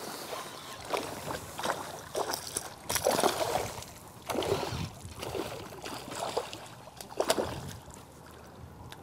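Hooked pike thrashing and splashing at the water's surface as it is played on the rod: a run of irregular splashes, the loudest about three seconds in and again about seven seconds in.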